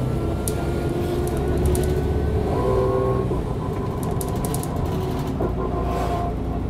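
Mercedes-Benz O 405 N2 city bus under way, heard from inside: a steady engine drone with whining drivetrain tones that shift about two and a half seconds in, and light rattles.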